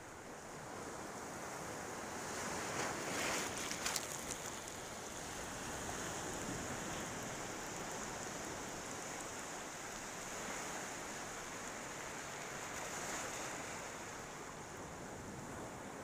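Ocean surf washing onto a beach in a continuous hiss, with a louder wave breaking about three seconds in and a smaller one near the end.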